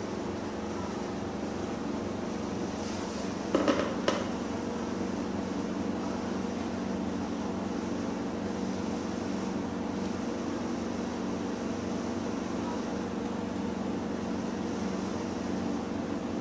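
A steady mechanical hum, like a fan or air-conditioning unit running, with two short, sharp sounds in quick succession about three and a half seconds in.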